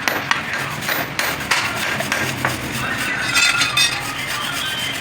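Metal parts and hand tools clinking, tapping and scraping during hand work on a truck clutch plate, with a run of sharp knocks in the first half and a scraping, ringing stretch in the second.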